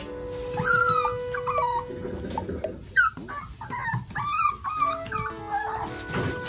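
Micro teacup toy poodle puppy whining and yelping over and over, high-pitched cries that rise and fall, demanding its food.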